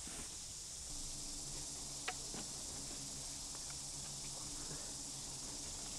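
Quiet outdoor ambience: a steady high insect chorus, with a faint low hum coming in about a second in and a single soft click about two seconds in.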